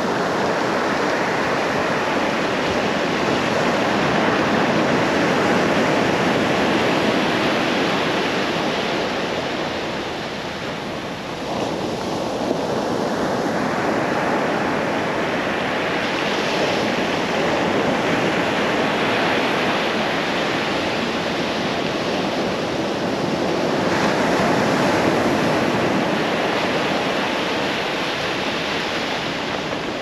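Ocean surf breaking and washing up a sand-and-pebble beach: a continuous rush that swells and ebbs with the waves, dropping back briefly about a third of the way through before the next wave builds.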